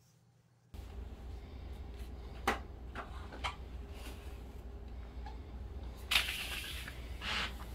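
Soft-bristle brush with a cotton towel over its head being pushed and dragged across a luxury vinyl plank floor: a few light knocks, then a louder sliding swish about six seconds in and a shorter one near the end, over a low steady rumble that starts under a second in.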